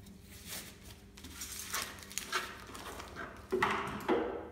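Disposable plastic gloves crinkling and rustling as they are pulled off the hands, then a plastic tub knocked against a shelf twice near the end.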